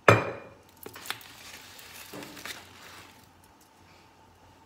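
A sharp bang right at the start with a short ring-out, then a few light knocks and rustling as kitchen items are handled on the counter.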